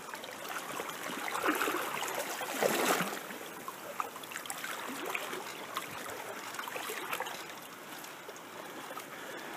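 Shallow stream running over a rippled stretch: a steady rush of water, swelling louder for a moment between about one and a half and three seconds in.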